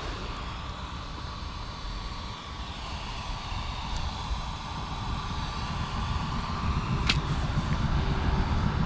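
Low wind rumble on the microphone while an RC touring-car chassis is handled, with a faint steady hum and a single sharp click about seven seconds in.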